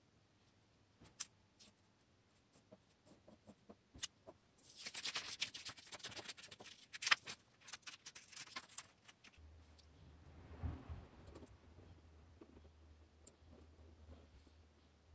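Scissors cutting a paper template: a few seconds of crisp snips and paper rustling, with scattered small clicks of paper and tool handling before it. A low steady hum comes in about two thirds of the way through, under light rustling as the paper is handled.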